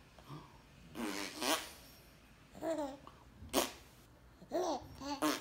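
A six-month-old baby laughing and squealing in about four short bursts, mixed with mouth-blown raspberries imitating farts.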